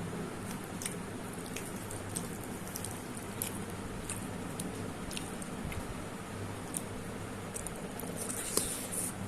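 Eating sounds: wet, squishy chewing and small mouth clicks scattered throughout, with a louder cluster near the end, over a steady low hum.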